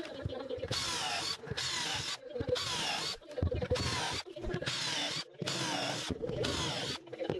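Cordless drill boring a row of holes through plywood, in a series of short bursts about a second apart. The motor's whine rises and falls with each hole.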